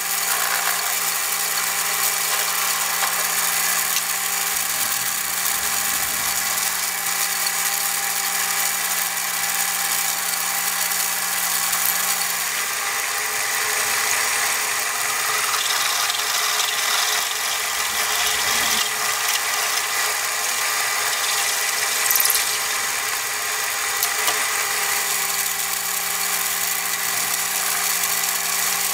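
Metal lathe running steadily while turning a cast wheel, a motor hum under the hiss of the cut. One low tone drops out about 13 seconds in and comes back near 25 seconds.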